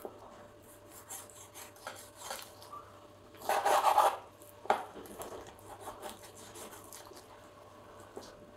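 Chef's knife cutting and scraping raw chicken thigh meat off the bone on a wooden cutting board: quiet scrapes and light ticks of the blade, with one longer, louder scrape about three and a half seconds in.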